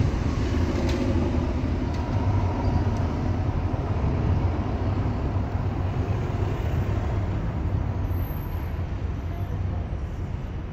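Street traffic noise: a steady low rumble of passing vehicles.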